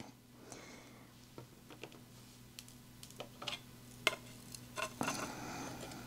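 Faint small clicks and taps of plastic diamond painting drills and a plastic drill tray being handled, with a light rattling of drills sliding in the tray near the end as it is tilted.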